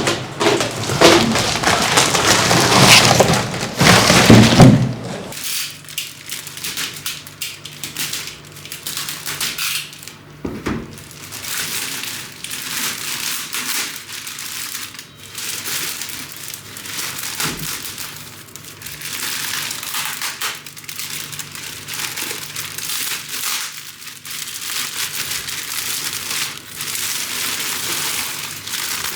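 Plastic packaging crinkling and rustling as it is handled, loudest for the first five seconds or so, then a run of softer crackles.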